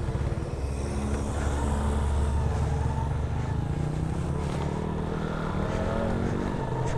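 Italika Z150 motorcycle engine running at low revs as the bike pulls away from a standstill and rolls onto the road, its pitch nearly steady with slight rises.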